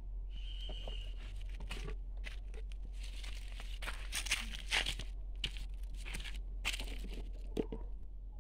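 Repeated rustling and crackling of hands working a cloth and a spray can, in short noisy bursts throughout, with a brief high squeak from a newborn puppy about half a second in.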